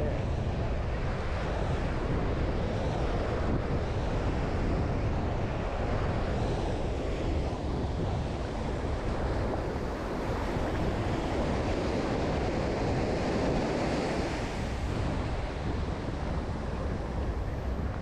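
Small Caribbean waves breaking and washing up the sand in a steady surf wash, with wind buffeting the microphone.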